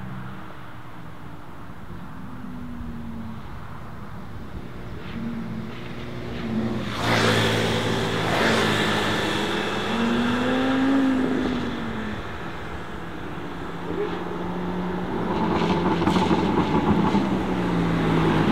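Several vehicles passing on a country road, car engines and scooters, their engine notes rising and falling as they go by. There is a sudden loud burst about seven seconds in and a few sharp cracks near the end.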